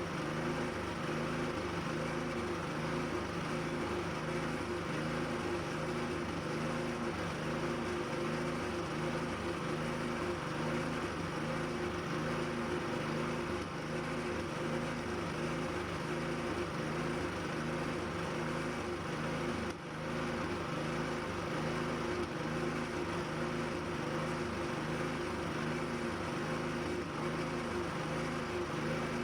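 A motor running steadily, with steady hum tones and a regular low pulsing of one or two beats a second.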